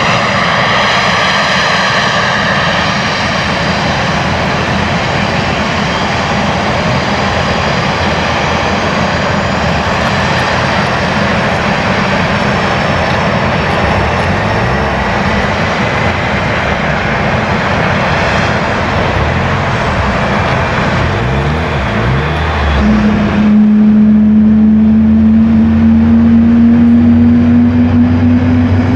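Boeing 767's jet engines running loud, with a whine at first. About 23 seconds in the sound changes abruptly to a strong lower hum that slowly rises in pitch.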